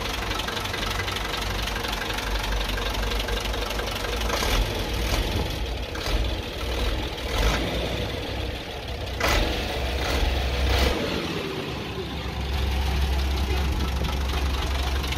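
Nissan UD truck's NE6 inline-six diesel engine idling steadily, with a few short sharp clatters over the middle of the stretch. The engine has a failed head gasket, leaking compression between its two cylinder heads.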